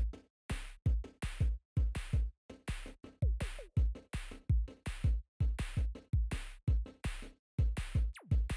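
Electronic intro music built on a fast drum-machine beat of sharp, choppy hits, with a few falling synth sweeps.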